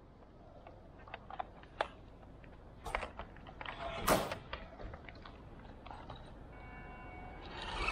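Scattered clicks and knocks from handling the gear, with one louder knock about four seconds in. Near the end the 1/10 WPL D12 RC pickup's electric motor and gearbox start to whine, and the truck's driving noise rises as it pulls away.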